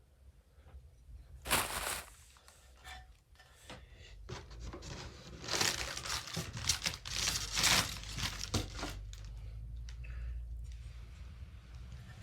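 Packaging being torn and peeled off by hand, in rough bursts of tearing and crinkling: one short tear about a second and a half in, then a longer run of tearing through the middle.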